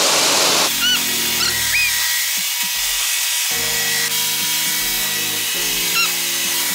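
Pressure-washer spray hissing as it rinses foam off a car, quickly overlaid by background music with held chords that change a few times and a few short chirping notes.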